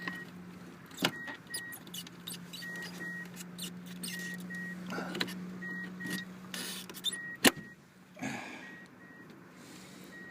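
Clicks and scrapes of plastic as a relay is worked loose from the truck's under-hood relay box, with a sharp snap about a second in and a louder one about seven and a half seconds in. A steady low hum runs underneath and stops just after the loud snap.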